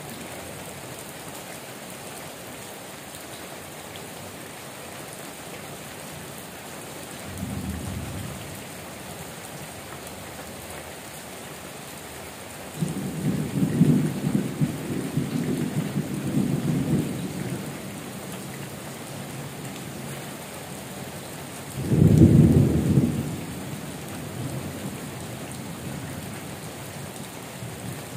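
Heavy tropical rain falling steadily on corrugated metal roofs and trees, with thunder rumbling three times: a short rumble about eight seconds in, a longer rolling rumble around thirteen to seventeen seconds, and the loudest peal about twenty-two seconds in.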